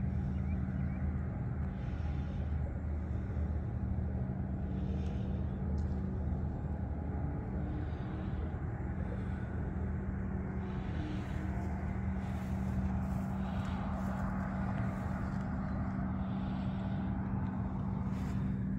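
A steady low mechanical hum holding one pitch, over faint outdoor background noise.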